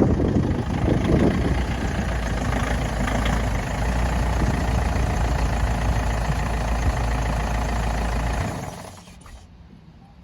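Ford Ranger PJ ute's diesel engine running steadily, then switched off about eight and a half seconds in, its sound dying away within a second.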